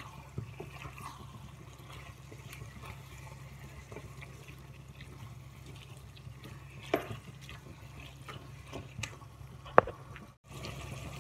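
Wooden spatula stirring and scraping spinach and mushrooms in a non-stick pan over a soft sizzle as their water cooks off. There are two sharper knocks of the spatula against the pan, about seven seconds in and again near the end.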